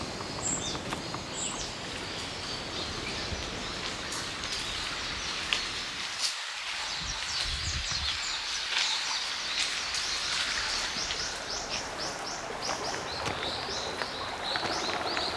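Subtropical forest ambience: a steady background hiss with birds calling, including a quick run of repeated high chirps in the second half.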